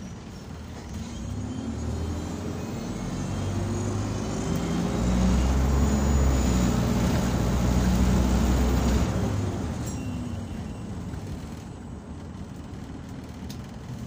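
Optare Solo SR bus accelerating hard, heard from inside the saloon. The engine and drivetrain rise in pitch with a hoover-like whine and are loudest for a few seconds in the middle, then ease off about nine seconds in.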